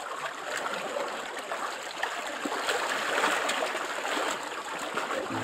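Small waves on choppy reservoir water lapping and splashing in a steady, unbroken wash.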